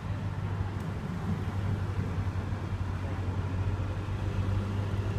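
A heavy diesel engine running with a steady low drone, which steps up in level just as the sound begins and then holds.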